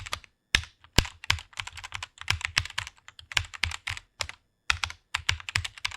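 Computer keyboard being typed on in quick, irregular runs of keystrokes, with brief pauses near the start and about four and a half seconds in.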